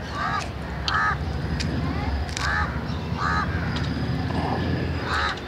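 Crows cawing repeatedly, about five caws spread through, over a low background rumble. Scattered light crackles come from dry succulent leaves being pulled off by hand.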